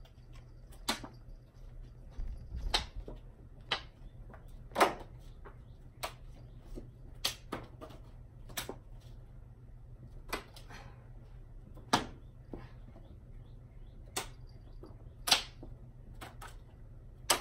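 Playing cards being thrown one after another, making a series of sharp, irregular ticks and slaps, about one every second.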